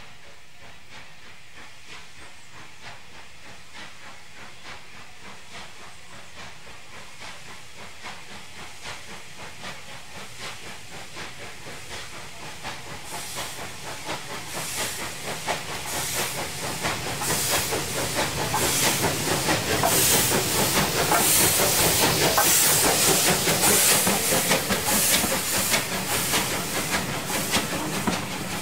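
Bulleid 'Battle of Britain' class three-cylinder steam locomotive 34072 "257 Squadron" approaching under steam, its regular exhaust beats and steam hiss growing steadily louder until it passes close by. Near the end the coaches roll past.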